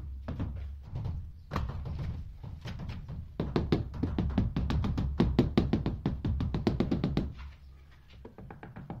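Rubber mallet tapping a ceramic wall tile in quick runs of light strikes, several a second, bedding the tile into its adhesive; the tapping eases off near the end. Music plays underneath.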